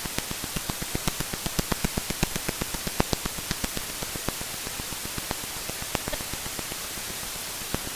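Radio-telescope sonification of the pulsar PSR B1822−09, a pulsar that switches between double and single pulses: a steady hiss of static with regular sharp clicks, several a second, each click a pulse of its radio beam sweeping past Earth. The hiss fades out near the end.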